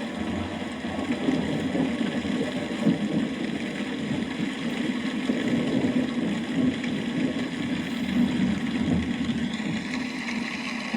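Steady heavy rain, a dense even hiss with a low rushing body.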